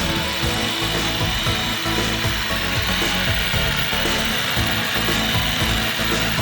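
Power tool running steadily on wood, a continuous cutting or sanding sound.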